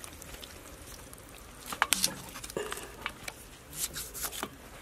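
Kitchen knife cutting through raw whole chicken by hand, with a cluster of sharp clicks and snaps about two seconds in and more near the end.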